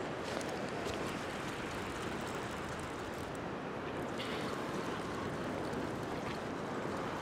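Ocean swell washing across a rock platform with waves breaking: a steady rush of water, with a few faint short splashes.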